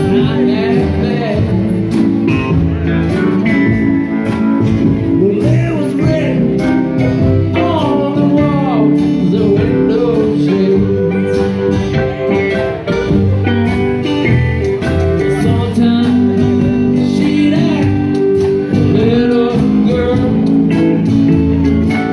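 Live band playing a song: electric and acoustic guitars over a drum kit, with a melody line sliding up and down in pitch over held chords.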